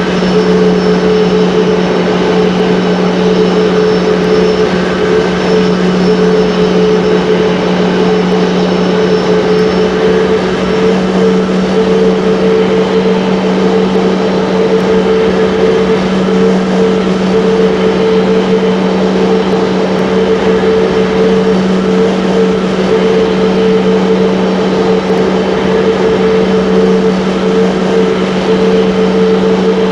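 Airbus A330 jet airliner running at a steady setting: a constant loud rush of engine and airflow noise with a low hum and a higher steady tone, neither changing in pitch.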